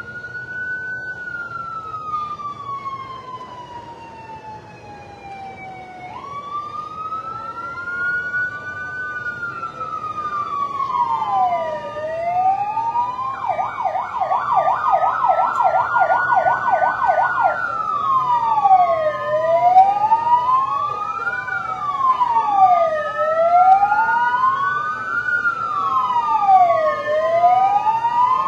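Emergency vehicle sirens, getting louder as they approach: a slow rising and falling wail at first, a rapid warble for a few seconds about halfway through, then quicker up-and-down sweeps, with two sirens sounding over each other.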